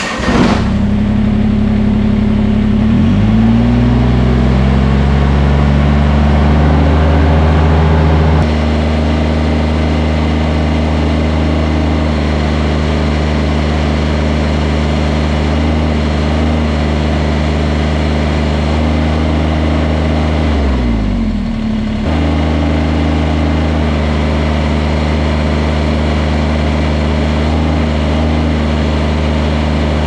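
Kubota BX23S compact tractor's diesel engine starting on the key, then speeding up after a few seconds and running steadily under hydraulic load during a relief-pressure test. About two-thirds of the way through, the engine speed sags briefly, then comes back up.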